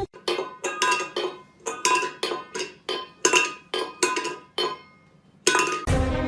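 Rapid, repeated clinking of hard metal or glass objects, each strike ringing briefly, about three a second for roughly four seconds, then one more strike after a short pause.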